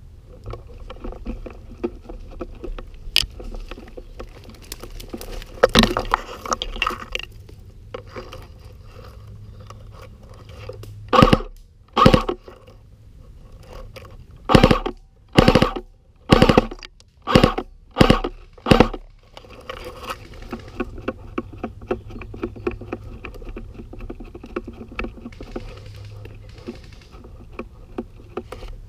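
Rustling, crunching and scraping from movement through dry undergrowth, close to the microphone. In the middle comes a run of about eight louder, short bursts roughly a second apart.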